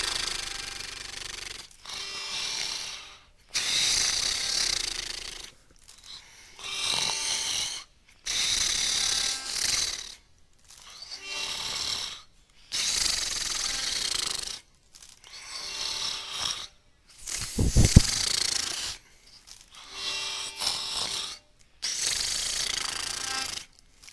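A person snoring in a steady rhythm, each wheezing breath lasting a second or two with short gaps between, dubbed with accordion sound effects so the breaths sound like bellows with faint held reed notes. One much louder, deeper snort comes about three-quarters of the way through.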